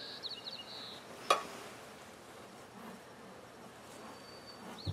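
Honey bees buzzing faintly around an open hive and bee package. A single sharp click about a second in, and a few high chirps in the first second.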